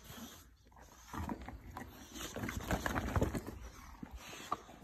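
Puppy playing with a rubber kitchen glove: a busy run of clicks and scuffles, loudest about three seconds in.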